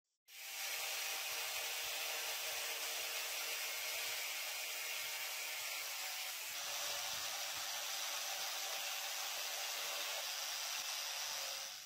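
A power tool's spinning wheel running against a blue-coated knurled metal part of an antique hand drill, a steady abrasive hiss. The sound changes in character about halfway through.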